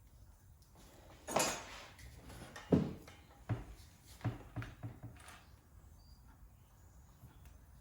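Sharp knocks and clinks of hard objects being handled in a small room, two louder ones about a second and a half and nearly three seconds in, then a few lighter taps.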